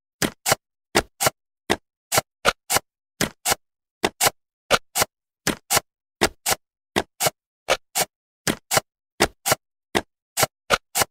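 Ticking sound effect: pairs of short, sharp clicks, tick-tock like a clock, repeating evenly about every three-quarters of a second.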